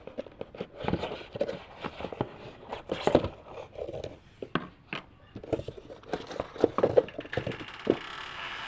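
Irregular rustling, scraping and tapping of packaging and ballet shoes being handled during unboxing. A steady hiss sets in near the end.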